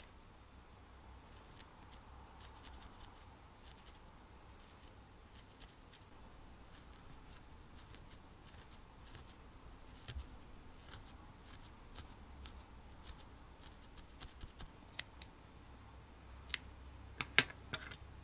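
Felting needle stabbing repeatedly into wool, a stream of faint soft ticks, with a few sharper clicks near the end.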